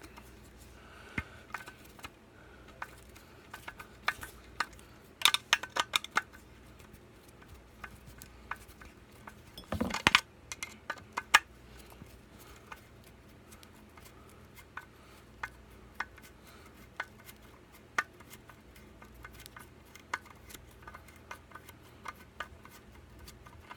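Scattered metal clicks and clinks of hand tools on a small two-stroke engine as a corroded part is worked loose, with louder clusters about five and ten seconds in.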